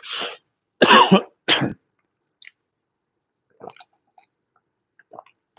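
A man coughing and clearing his throat, three harsh bursts in the first two seconds, followed by faint short sounds of him sipping from a glass of water.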